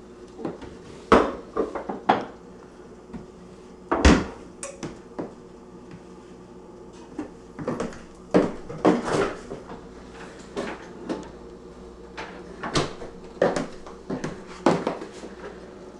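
Kitchen clatter: irregular knocks, clunks and clinks of dishes and cupboard doors being handled, some close together and some a second or more apart, over a steady low hum.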